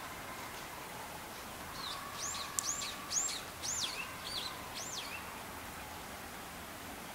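A bird calling: a quick series of about seven high, clear whistled notes, each rising and then falling in pitch, over about three seconds.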